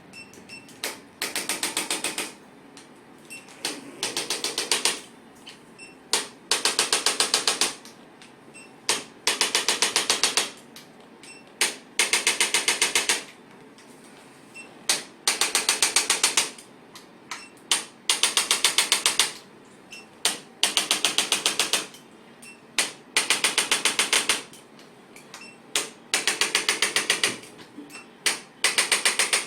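Handheld electric percussion adjusting device working on the knee joint: a single click, then about a second of very rapid clicking taps, repeated roughly every two and a half to three seconds, about eleven times.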